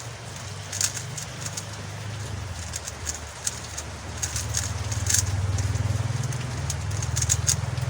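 MoYu Huameng YS3M MagLev 3x3 speedcube being turned fast during a solve, its layers giving quick, irregular clicks. A low hum underneath grows louder about four seconds in.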